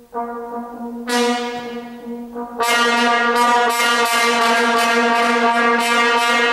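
Solo trombone holding one note, played in several separate attacks, then swelling about two and a half seconds in to a loud, bright, brassy sustained tone with an irregular flicker in its upper overtones.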